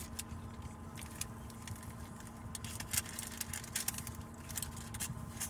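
Steady low hum of a car heard from inside its cabin, with scattered light clicks and rustles.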